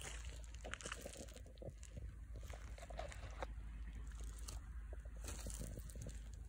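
Hiking boot pressing into a cow pat: soft, irregular squelching and crackling of wet dung and grass under the sole.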